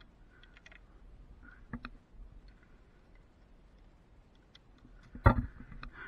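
Scattered light clicks and ticks as a cable lasher and its pole are handled on the strand, with a small knock a couple of seconds in and a sharp, louder knock about five seconds in.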